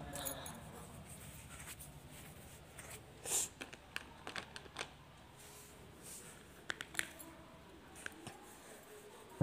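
Sheets of paper being handled and a crayon working on a drawing: light rustles, a few short taps and scratches, the loudest about three seconds in.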